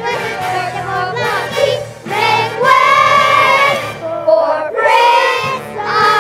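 Children's chorus singing a stage musical number with instrumental accompaniment.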